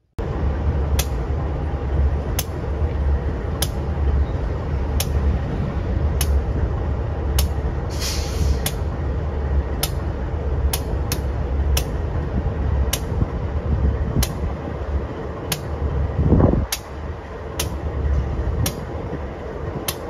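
Diesel freight train passing: a steady low rumble with sharp wheel clicks over the rail joints about once a second. There is a short hiss about eight seconds in and a brief rising tone about sixteen seconds in.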